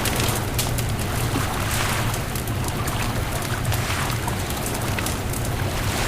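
Beach bonfire crackling and popping with irregular sharp snaps, over a steady low rumble of wind and surf.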